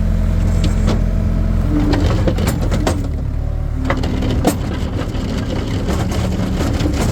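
Skid steer engine running steadily while its bucket works hard-packed ground and gravel, with crunching and sharp knocks from about two and a half seconds in.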